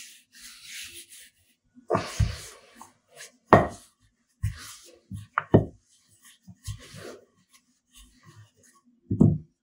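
Wooden rolling pin rolling bao dough flat on a floured granite countertop: soft rubbing and scraping of dough and flour, broken by several dull knocks of the pin and hands on the stone, the loudest near the end.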